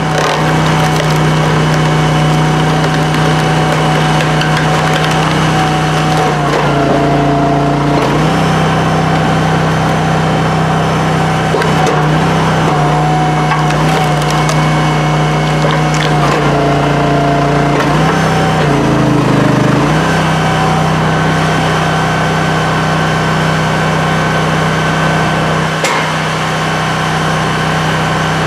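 Honda gasoline engine of a Brute Force 20-24 hydraulic log splitter running steadily. Its pitch sags briefly several times as the hydraulics take the load of a split. Wood cracks, and split pieces clatter onto the pile.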